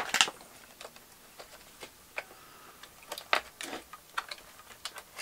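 Irregular light clicks and taps of a plastic battery pack and its wires being handled in a robot vacuum's battery bay. A sharp click comes at the very start, and a quick run of taps comes a little past halfway.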